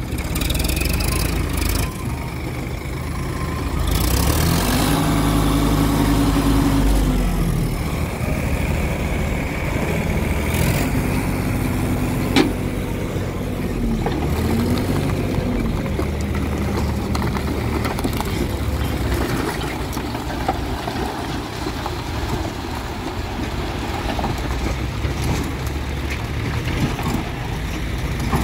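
Farm tractor diesel engines running while hydraulic tipping trolleys are raised to dump rocky soil. The engines rev up about four seconds in and again around ten to fifteen seconds, and there is a single sharp knock about twelve seconds in.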